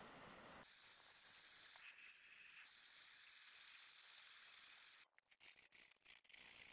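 Near silence: a faint steady hiss that drops out briefly several times near the end.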